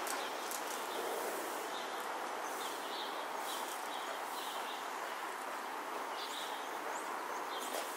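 Steady outdoor background noise, an even hiss with no single clear source, with short high bird chirps scattered through it every second or so.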